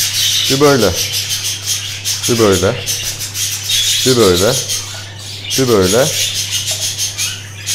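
A hen budgerigar gives harsh, arching calls four times, about every couple of seconds; the breeder treats it as shouting at him for disturbing her nest. Under the calls runs a steady scratchy rustle of the nest-box grit bedding as a hand moves eggs and chicks in it.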